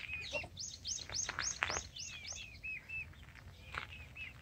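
Young chickens peeping: a quick run of high, falling peeps in the first half, with softer, lower peeps scattered throughout.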